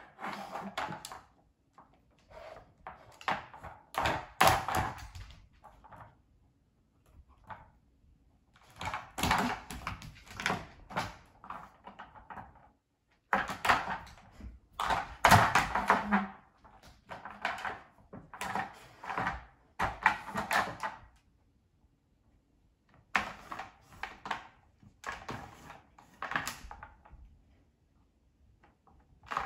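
Hard plastic dog treat puzzle toy clattering and knocking on a hardwood floor as a husky puppy paws and noses at it, in bursts of rattling clicks with short pauses between.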